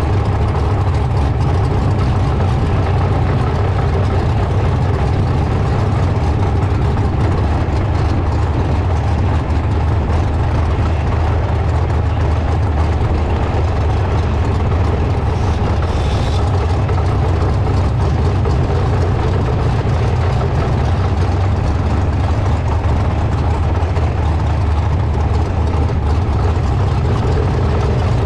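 Sprint car's engine running steadily at low revs as the car rolls slowly along at about 15 to 19 mph, a deep, even drone that does not rise or fall.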